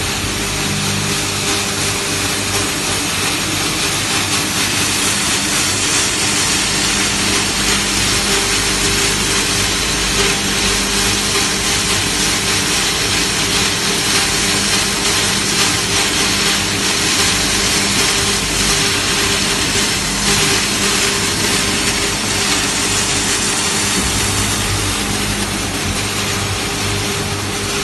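Electric feed-mill crusher with an 11 kW motor running steadily while grinding grain fed from a sack. It gives a loud, steady hum with a dense hiss over it.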